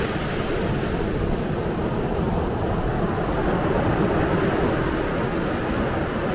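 Surf breaking on a sandy beach: a steady rush of waves with a strong low rumble.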